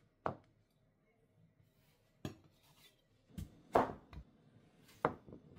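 Nakiri knife cutting on a wooden cutting board: one chop through mushrooms at the start, then after a pause a few separate cuts through a zucchini down onto the board, the loudest about two thirds of the way in.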